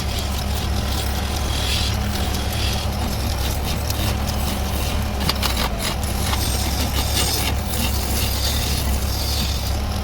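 Wood lathe running steadily with a low hum while a charpai leg is coloured on it, with a few light clicks about five to six seconds in.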